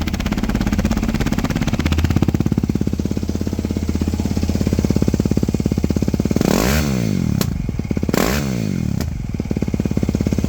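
Yamaha WR450F's single-cylinder four-stroke engine idling through a Yoshimura RS-4 exhaust, with two quick throttle blips, one about six and a half seconds in and another a second and a half later.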